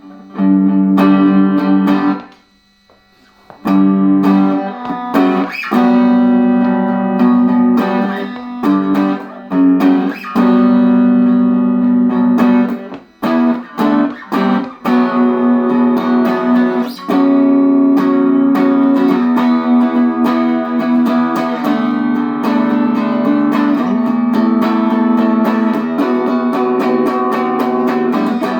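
1985 Fender Performer electric guitar on its neck pickup, played through a Peavey Valve King Royal 8 valve amp with no effects: strummed chords left to ring. It stops briefly about two seconds in, and a few short chopped chords come around the middle.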